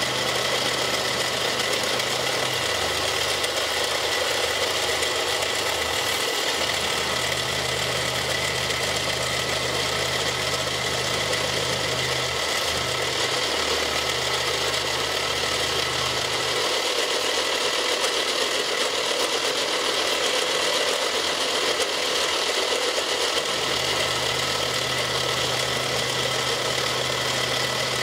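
Milling machine face-milling a plastic block, the cutter head running steadily and chewing through the plastic, throwing off chips. A low hum drops away for several seconds past the middle, then comes back.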